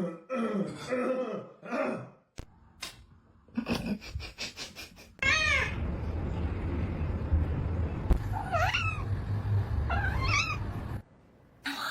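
Domestic cat meowing several times, three separate calls rising and falling in pitch over a steady low rumble.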